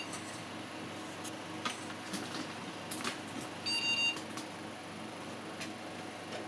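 Desktop computer running just after power-on, its cooling fan humming quietly and steadily. A short electronic beep sounds just after halfway, with a brief one at the very start: the motherboard's power-on self-test beep.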